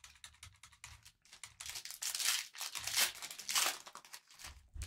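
Trading card pack wrapper crinkling and tearing as it is opened, in several noisy bursts loudest around the middle, amid light clicks from handling.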